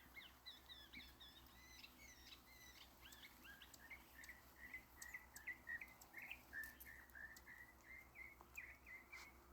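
Faint birds chirping: a quick string of short chirps one after another, with a few soft clicks among them.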